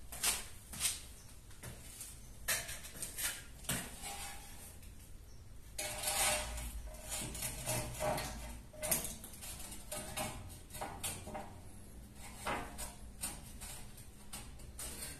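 Knocks, clatter and scraping as a large cut wall tile is handled and held against the wall for a test fit. There are a few sharp knocks early on and a longer scrape about six seconds in.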